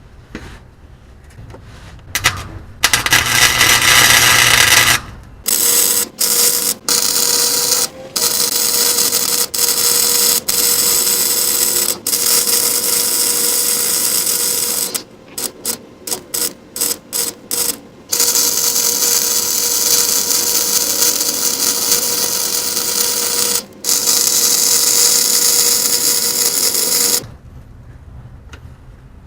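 Electric welder's arc crackling and hissing as a patch of pipe is welded over a hole in a steel exhaust pipe. It comes in several runs of a few seconds each, with a quick string of short stitch bursts about midway, and stops a couple of seconds before the end.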